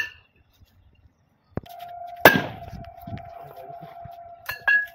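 Firecrackers going off: a sharp bang right at the start, a loud bang about two seconds in that dies away, and a quick cluster of sharper cracks near the end. A steady ringing tone runs under them from just before the loud bang.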